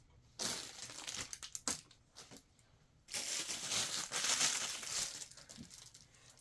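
Plastic packaging crinkling and rustling as items are handled, in two stretches with small clicks.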